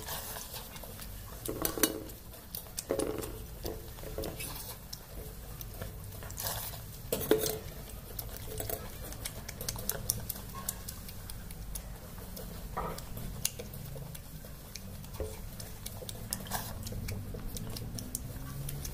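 Eating by hand from stainless steel bowls and plates: scattered light clinks and knocks of steel dishes, the two loudest about 2 and 7 seconds in, with soft sounds of handling wet soaked rice between.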